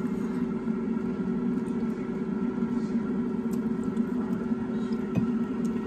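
Air fryer running: a steady fan hum, with a few faint clicks on top.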